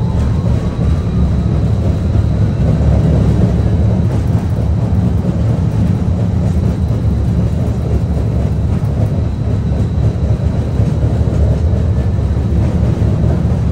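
Portland streetcar in motion, heard from inside the car: a steady low rumble of wheels on rail and running gear, with a faint whine rising in pitch over the first couple of seconds.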